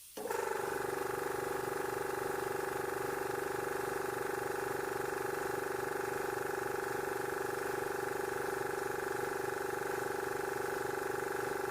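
Small air compressor switching on abruptly and running steadily as it inflates the patched tyre, with a fast low pulsing under a strong steady hum.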